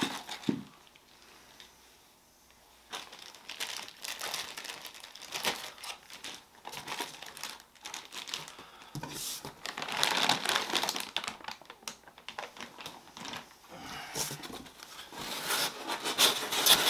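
Plastic packaging bags crinkling and rustling as parts are unwrapped, on and off, starting about three seconds in and loudest around the middle and near the end.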